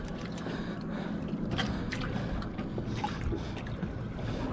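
Ambience on a small fishing boat at sea: a steady low rumble with a faint hum, with a few scattered light clicks.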